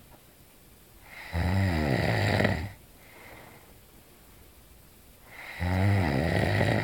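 A sleeping man snoring loudly: two long snores about four seconds apart, each lasting over a second.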